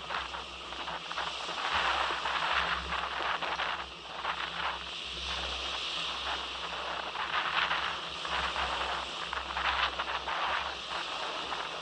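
Strong wind buffeting the microphone in a gusting low rumble, over a steady hiss and crackle of water splashing and rushing past a small sailing craft under way.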